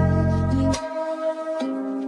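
Music: a melody of held notes stepping in pitch over a deep bass that drops out a little under a second in.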